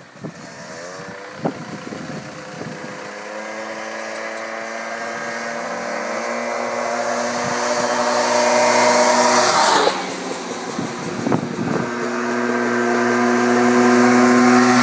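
Small Honda off-road buggy's engine accelerating toward the listener, its note rising and getting louder. About ten seconds in the note drops briefly, then climbs again and holds high near the end.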